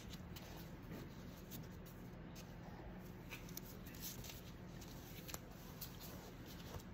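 Faint handling sounds of a cross-stitch piece on fabric: soft rustling with scattered light clicks over a steady low hiss.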